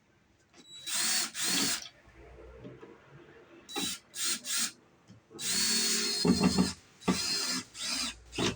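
Cordless drill/driver running in a string of short trigger bursts and one longer run of about a second and a half past the middle, its motor whine climbing as each burst ends. It is driving 1-inch screws into wood.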